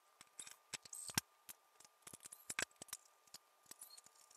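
Faint, irregular light metallic clicks and ticks as a mini amplifier's small metal case is handled and its screws are taken out, some clicks with a brief high ring.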